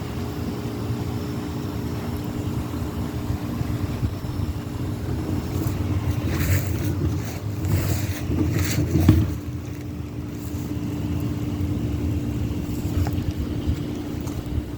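5.9-litre Cummins 12-valve inline-six diesel engine running steadily at idle, an engine with an exhaust leak. A few short, sharp sounds cut in over the drone between about six and nine seconds in.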